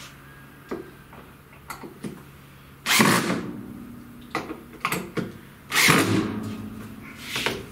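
Cordless drill driving a screw into a board in two runs, about three seconds in and about six seconds in, each starting with a loud whir and running on with a steady hum as the screw goes in. Light clicks and knocks between the runs.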